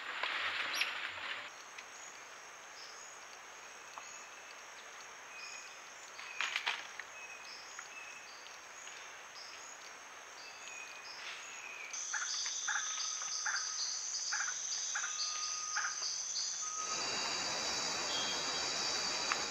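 Tropical forest ambience from a trail camera: insects droning and trilling steadily at a high pitch, with repeated chirps and scattered bird calls. A brief knock comes about six and a half seconds in. The background changes abruptly at each cut between clips, and the insect drone grows louder in the later clips.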